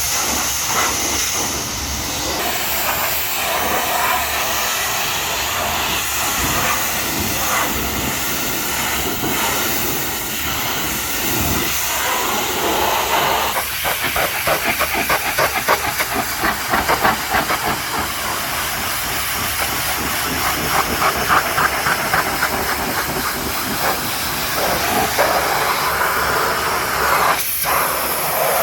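High-pressure washer jet spraying water onto a mud-covered truck: a loud, steady hiss of spray, with stretches of rapid fluttering spatter in the middle.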